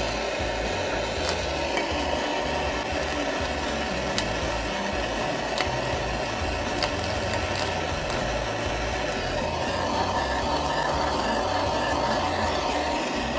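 Handheld blowtorch flame hissing steadily as it plays on an egg in a small saucepan, with a few sharp ticks scattered through.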